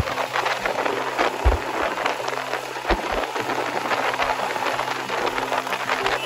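Wind noise crackling and buffeting on the microphone of a moving Royal Enfield Himalayan motorcycle, with occasional low thumps. Underneath is the faint steady hum of the bike's single-cylinder engine at cruising speed.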